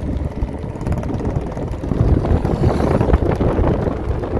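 Wind buffeting the microphone of a rider on a moving electric motorcycle, with a steady, dense rumble of rushing air and road noise.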